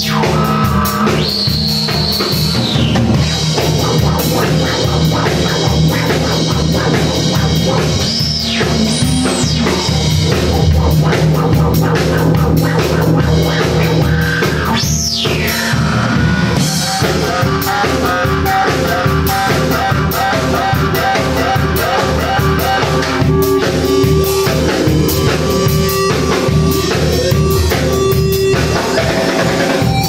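Drum kit played with a steady rock beat alongside a Korg Monotron Duo, a small analog ribbon synthesizer, which drones and several times swoops sharply up and then back down in pitch.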